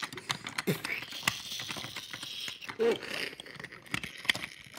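Plastic Duplo bricks and pieces clicking and rattling against each other, many small irregular clicks, with two brief squeaks about a second and three seconds in.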